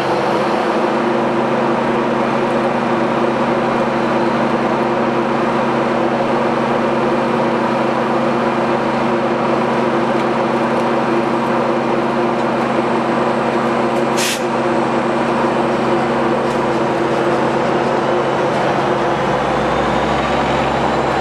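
Amtrak California EMD F59PHI diesel locomotive running steadily beside the platform, with a constant engine drone. A brief hiss of released air comes about fourteen seconds in, and a deeper rumble builds near the end.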